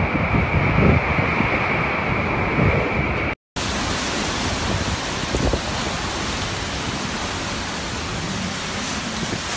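Typhoon wind and heavy rain: gusty storm noise that breaks off about a third of the way in, then an even, dense hiss across all pitches, typical of a downpour.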